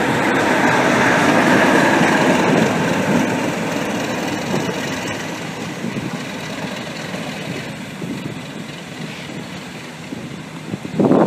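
Class 37 diesel locomotive's English Electric V12 engine running as the locomotive moves off past the platform, fading steadily as it draws away. A sudden louder, choppy noise cuts in at the very end.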